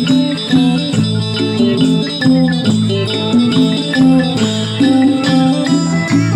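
Isan pong lang ensemble playing folk dance music: a repeating melody over sustained low notes, with regular note strikes.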